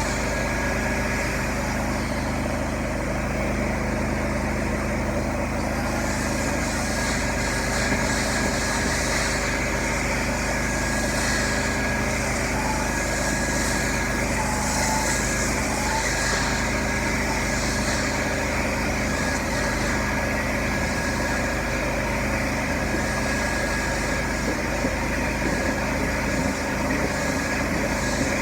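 Carpet-cleaning machinery running with a steady motor drone; from about six seconds in, repeated hissing swells come and go for about ten seconds, as hot water extraction passes are made over a carpet floor mat.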